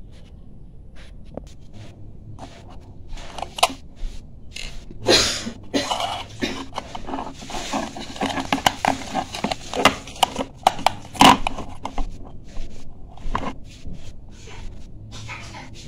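Irregular clicks, knocks and scrapes of hands handling a metal LED bulb housing and its LED circuit board as the board is taken out, the sharpest knocks about five and eleven seconds in.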